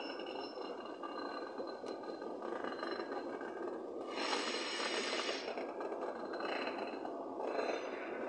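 Freight wagons rolling past on a curved track: a steady rumble of wheels on rail, with thin high wheel squeal at first and a louder, harsher screech of wheel flanges against the rail from about four seconds in, returning in shorter bursts near the end.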